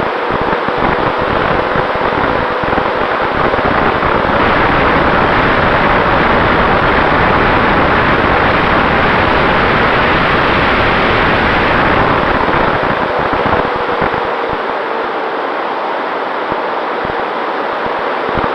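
Airflow rushing over a radio-controlled P-51D Mustang, picked up by the camera mounted on the plane, with a faint steady whine from its battery-powered electric motor and propeller. The rush swells louder for several seconds in the middle, then eases.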